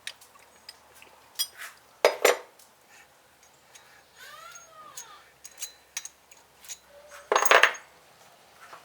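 Small metal hydrostatic pump parts handled on a bench: scattered clicks and clinks, a short scrape about halfway through, and two louder clattering knocks, one about two seconds in and one near the end.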